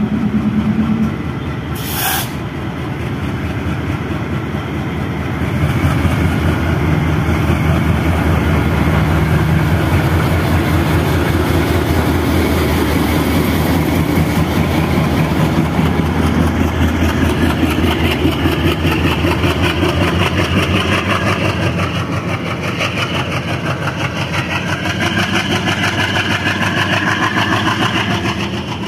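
WDP-3A diesel locomotive's ALCO engine throttling up as the train pulls away from the platform. It runs loud and steady with a fast pulsing beat and grows louder about five seconds in. A short sharp noise comes about two seconds in.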